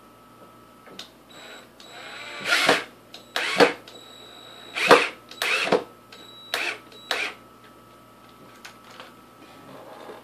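A string of short scraping and knocking sounds, about seven in all, from hands working parts on top of a wooden charging-station box, over a faint steady high tone.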